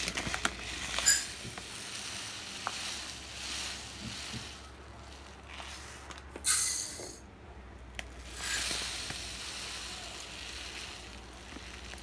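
Dry little millet grains being poured from a plastic packet into a small steel cup, a hissing rush of grain that comes in several short pours, with a few light clicks.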